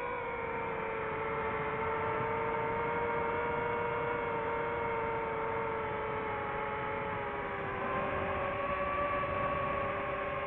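DJI FPV drone's motors and propellers whining in flight, a steady multi-pitched buzz whose pitch sags slightly and then rises again about eight seconds in.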